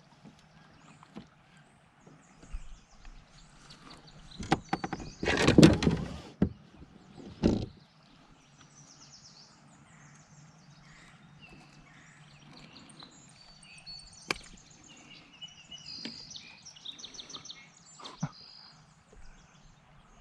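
A smallmouth bass being landed into a kayak: scattered knocks against the hull, a loud burst of thrashing about five seconds in and a shorter one about two seconds later. Birds chirp faintly in the background.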